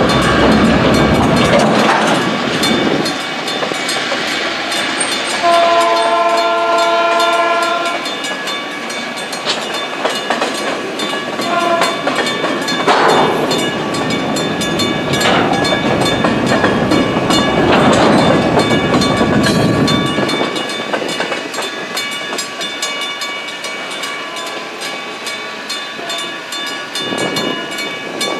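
Freight cars rolling through a grade crossing, wheels clicking over the rail joints, while the crossing's mechanical bells ring rapidly. A horn sounds for about two and a half seconds about six seconds in, with a short toot near twelve seconds. The rolling noise drops away about twenty seconds in as the last cars clear, leaving the bells ringing.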